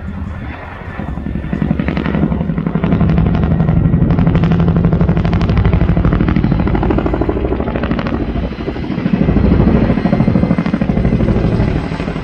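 Boeing CH-47 Chinook tandem-rotor helicopter flying by, its rotors' rapid, even blade slap over a steady low hum. It grows loud about two seconds in and stays loud, with a brief dip about three-quarters of the way through.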